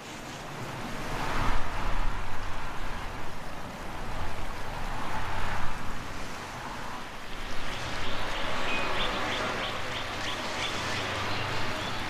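Wind gusting in swells with a low rumble underneath. From about two-thirds of the way through comes a quick run of short, high chirps.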